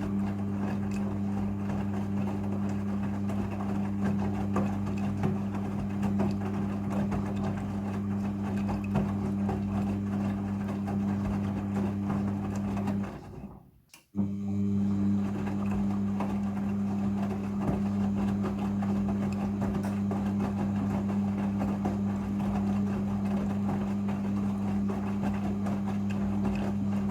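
Midea front-loading washing machine in its rinse cycle: the drum motor hums steadily while the wet load tumbles. About halfway through the motor stops for about a second, then starts up again.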